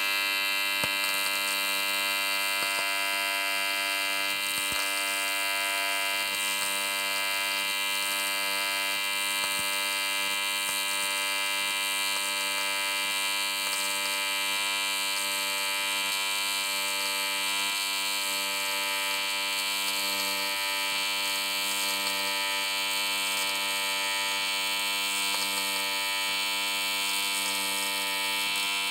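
TIG welding arc buzzing steadily while a middle pass is run across a wide gap.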